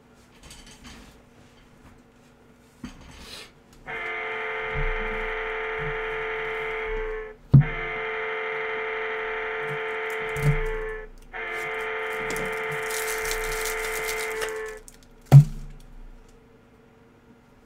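Three long, steady musical tones, each held about three seconds, with sharp knocks between them and one near the end.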